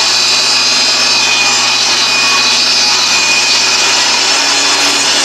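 Jobsite table saw running and ripping an old, weathered wooden board lengthwise, a loud steady whine of motor and blade cutting wood.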